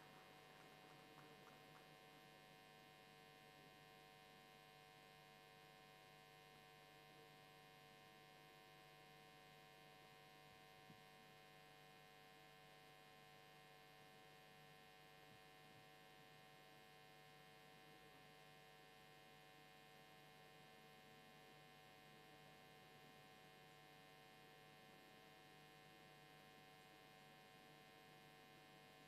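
Near silence with a faint, steady electrical hum in the audio feed.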